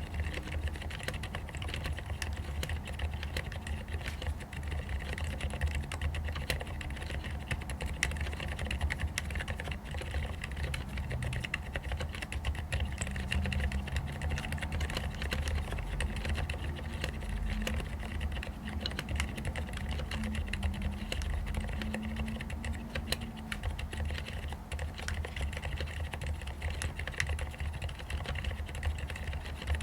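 Continuous fast typing on a mechanical keyboard with fully lubricated Cherry MX Silent Red linear switches: soft, muted keystrokes, mostly fingertips tapping the keycaps, with little sound from the switches themselves.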